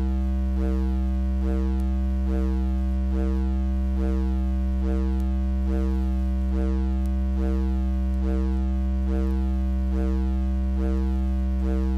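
Electronic drone noise music: deep, steady humming tones held unchanged under a mid-pitched tone that pulses a little over once a second, each pulse trailed by faint sweeping chirps.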